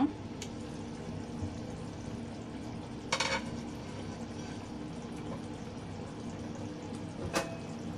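Fish curry simmering in a covered clay pot, a steady bubbling hiss, with a short clatter about three seconds in and a sharp click near the end.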